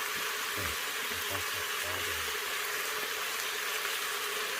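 Squirrel meat with green eggplant, garlic and ginger frying in hot oil, a steady even sizzle.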